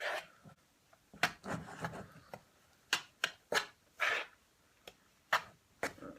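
Spoon stirring a thick, gooey mix of cornstarch and hair conditioner in a bowl: irregular scrapes and sharp clicks of the spoon against the bowl.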